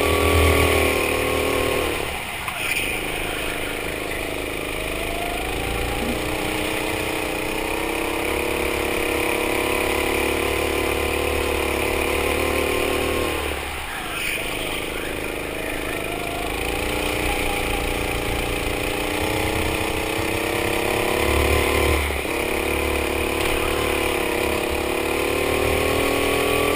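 Go-kart engine heard from the driver's seat, its pitch climbing slowly on the straights and falling sharply three times as the throttle is lifted for corners.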